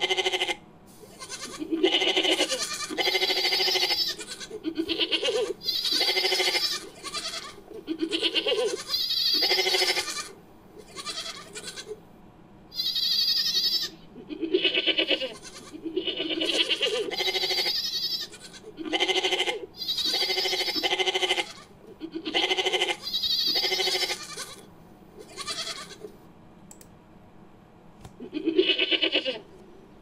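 Goat and ibex bleats, edited together into a creature sound effect: a long string of bleating calls, each about half a second to a second long and closely spaced, with a pause of about two seconds near the end.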